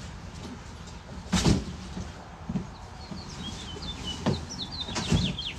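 A bird chirping in quick, short, high notes from about halfway through, over three sharp knocks, the first and loudest about a second and a half in.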